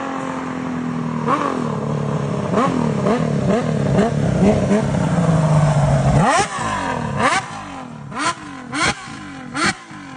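Honda CBX 1050's air-cooled inline-six engine, through a Secret Weapon aftermarket exhaust, being revved in a series of quick throttle blips that rise and fall in pitch, then held at a higher note. About six seconds in it is revved hard once, then given several short, separate blips.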